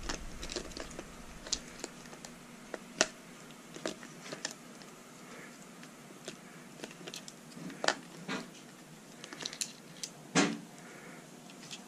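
Hands fitting a 7.4 V battery pack into an RC truck's plastic chassis and tucking its wire leads: scattered small clicks, taps and plastic handling noise, with sharper clicks about three seconds in and near the end.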